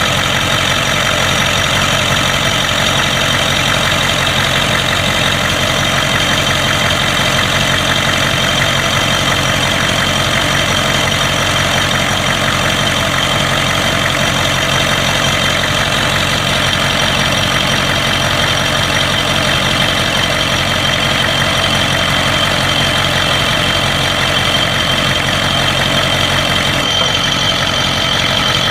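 1992 Ford 7.3 IDI V8 diesel idling steadily. The engine has a random misfire at idle, blowby and a knock the owner likens to injector knock; teardown traced this to broken second compression rings on two pistons and a bad valve guide.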